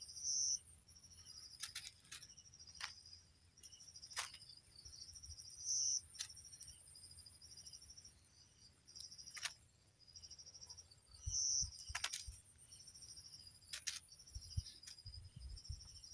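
Insects chirping: a steady high-pitched buzz over rows of quick pulsed chirps, swelling into a louder burst about every five or six seconds. Sharp clicks come now and then, with a few low thumps near the end.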